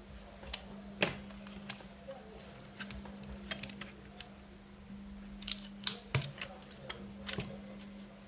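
Scattered light clicks and taps of small parts and tools being handled on an HP Pavilion g6 laptop under disassembly, the sharpest about a second in and about six seconds in, over a steady low hum.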